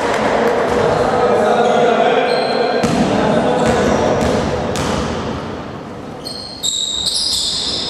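Echoing gym sound of a basketball game: indistinct player voices and a basketball bouncing a few times on the wooden floor. High sneaker squeaks on the court come near the end.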